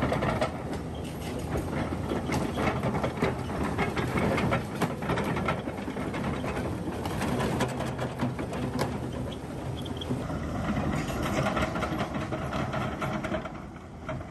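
Huina 1593 RC excavator's electric motors and gearboxes whirring as it works, with many quick clicks and rattles, easing off near the end.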